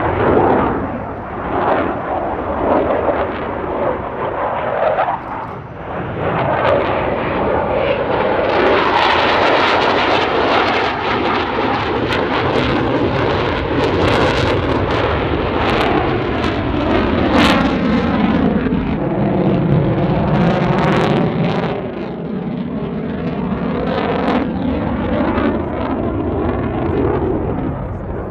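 Eurofighter Typhoon fighter jets' engines running loudly through a dogfight display, with crackling throughout and a falling sweep in tone as a jet passes, about two-thirds of the way in.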